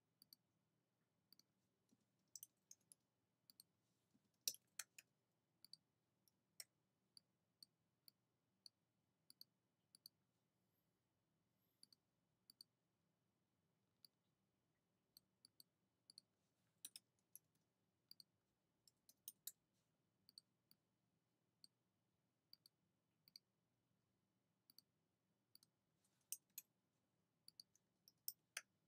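Faint, irregular clicks of a computer mouse and keyboard, single clicks spread out between short runs of keystrokes.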